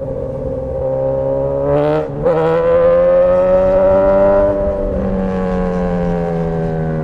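Straight-piped Suzuki GSX-S1000 inline-four engine, loud. It pulls up in revs, breaks off briefly about two seconds in, pulls up again, then eases off and winds down over the last couple of seconds.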